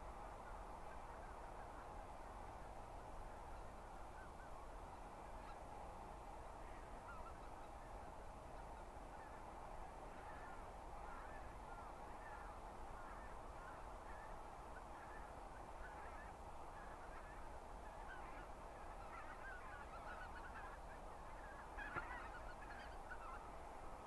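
A feeding flock of wild geese, greater white-fronted, snow and bean geese, honking and cackling as a steady chorus of many overlapping calls, with a few louder calls near the end.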